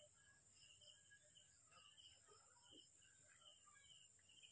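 Near silence: faint outdoor ambience with a steady high insect drone and many short chirps repeating throughout.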